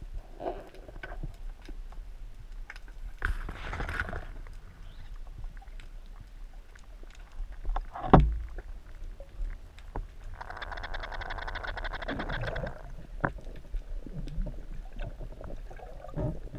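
Underwater sound through a camera housing: scattered clicks and water movement, a sharp knock about eight seconds in, and a buzzing rattle from about ten to thirteen seconds.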